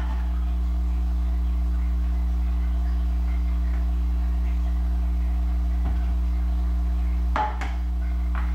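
A steady low hum with a few held tones above it, unchanging in level. A brief light knock sounds near the end.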